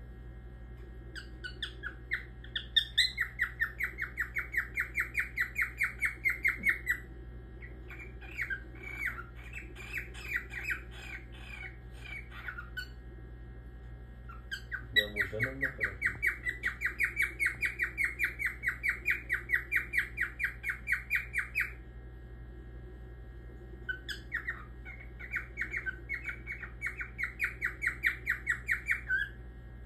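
Grey cockatiel calling: long runs of quick, evenly repeated chirping notes, about five a second, each run lasting several seconds, four runs with short pauses between them.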